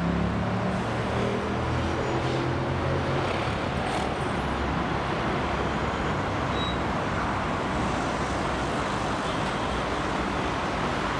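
Steady heavy road traffic on a multi-lane city road, tyres and engines together. The drone of one engine stands out over it for the first few seconds, then fades into the general traffic noise.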